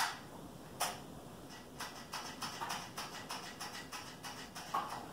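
A sharp click, another just under a second later, then a run of light, irregular clicks and taps from hands working on a garden tractor's small engine. The engine does not crank or run.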